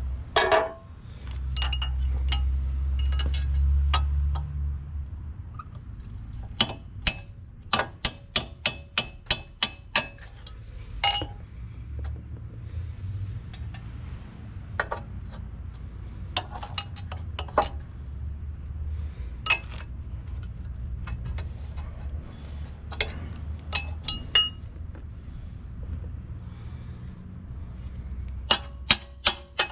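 Hammer blows on steel: sharp metallic clinks with a short ringing tone, a quick run of about ten strikes a quarter of the way in, then scattered strikes and a short cluster near the end. A low steady rumble runs underneath.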